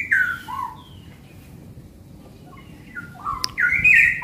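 Straw-headed bulbuls (cucak rawa) singing loud, rich whistled phrases that step down in pitch. There is a phrase at the start, a lull, and then a fuller run of song from about three seconds in, with one sharp click just before it.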